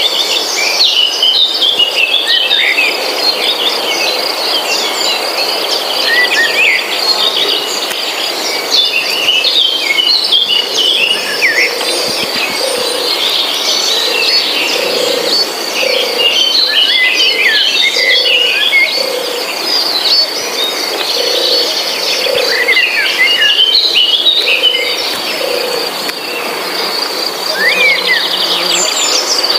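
Many small birds chirping and twittering over a steady, pulsing insect trill. Through the middle, a lower call repeats about once a second.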